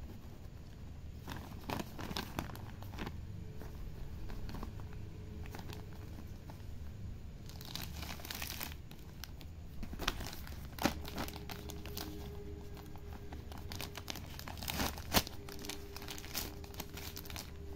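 Thin plastic bag and plastic mesh being handled, crinkling and crackling in short scattered bursts. A longer, denser stretch of crinkling comes about eight seconds in, with a few sharper clicks later.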